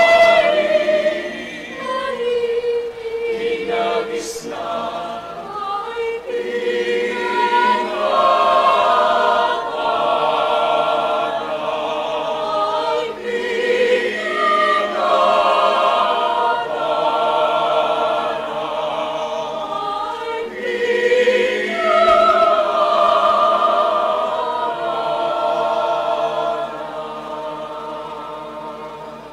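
Mixed choir of women's and men's voices singing together, fading away near the end.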